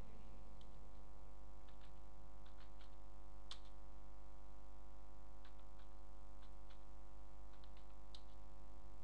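Computer keyboard being typed on slowly: single keystroke clicks and short runs of a few keys, with pauses between, over a steady background hum.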